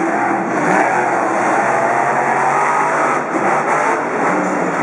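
Monster truck engines running loudly at high revs, revving under acceleration.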